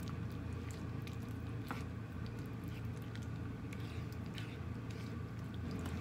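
Wooden spatula stirring chunks in a thick creamy sauce in a frying pan: soft wet squishing with small scattered clicks and scrapes, over a steady low hum.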